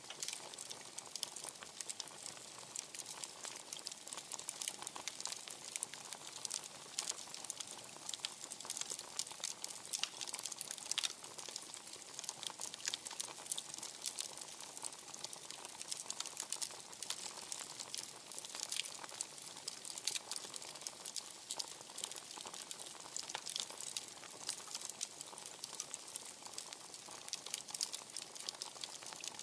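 Wood fire crackling, with a dense, steady run of small pops and snaps and a few louder cracks, one about eleven seconds in.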